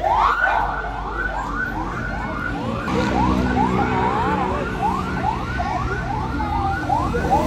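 Fire truck siren sounding in quick rising yelps, about two a second, with the truck's engine running underneath from about three seconds in.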